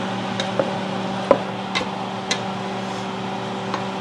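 A spatula stirring pork and onions as they brown in a nonstick pot, knocking and scraping against the pot about six times, the loudest knock a little over a second in, over a steady low hum.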